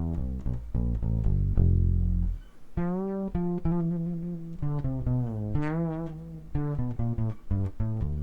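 Ibanez SRH500F fretless bass played through a chorus effect: a run of quick plucked notes, then longer held notes with wide vibrato.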